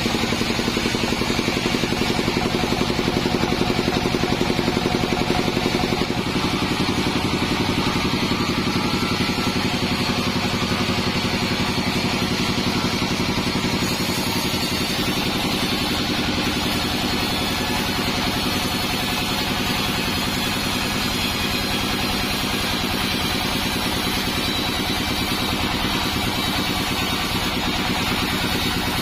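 Modified band sawmill running, a steady engine-like drone with a fast even pulse underneath; its low hum changes and drops slightly in loudness about six seconds in.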